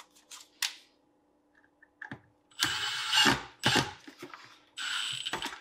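Cordless drill-driver running in three short bursts as it drives the ground wire's screw into the disposal's grounding lug, after a few small clicks as the tool is picked up.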